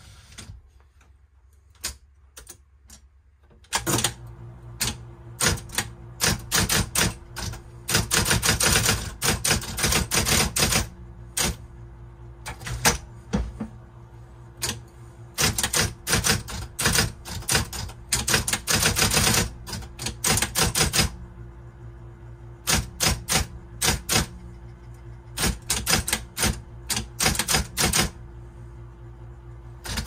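Brother Correct-O-Ball XL1 electric typewriter, a ball-element machine. A few light clicks, then the machine's steady hum starts about four seconds in, and fast key strikes follow in bursts of rapid typing with short pauses, the hum running underneath.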